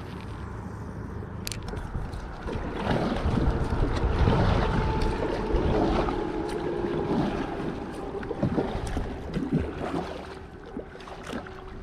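Wind buffeting the microphone over water lapping at a fishing kayak, swelling for a few seconds in the middle, with a faint steady hum and a few light knocks.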